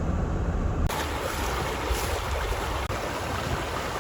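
Wind, with gusts buffeting the microphone as a low rumble, in a snowstorm; about a second in it changes to a broader, steady windy hiss.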